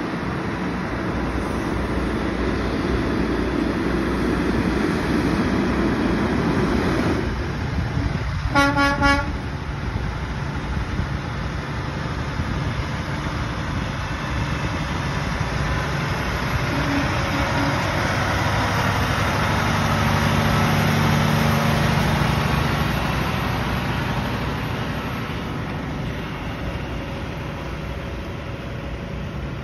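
Diesel tractor-trailer haulers driving past: engine and tyre noise loud for the first seven seconds, then a horn sounding a quick run of short toots about nine seconds in. A second truck's engine swells and fades, loudest about twenty-one seconds in.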